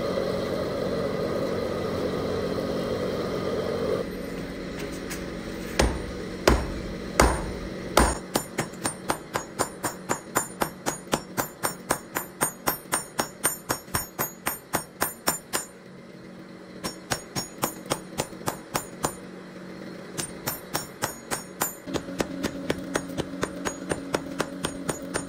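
Steady rush of a coal forge fire for the first few seconds. Then a hammer strikes a red-hot bar of MIG welding wire on a steel anvil: four heavy, spaced blows, then runs of quick strikes at about three a second, broken by short pauses, as the bar is forged out into a blade.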